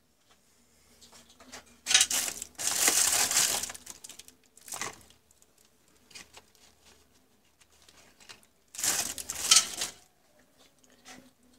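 Packaging crinkling as it is handled, in two spells: one starting about two seconds in and lasting about a second and a half, and another near the end lasting about a second. Faint rustles and light ticks come between them.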